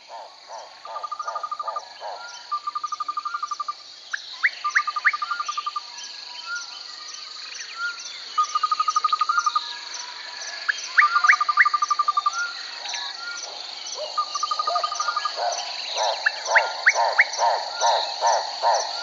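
Forest chorus of insects and birds: a steady high insect drone, short high trills repeated every second or two, and brief rising bird chirps. Low rhythmic calls, about three a second, pulse at the start and again over the last few seconds.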